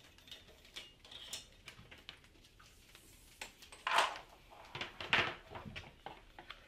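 Televic D-Cerno discussion unit handled on a tabletop as it is picked up and turned over, knocking and scraping against the table. There is a sharp knock about four seconds in, then several softer knocks; faint light clicks come before.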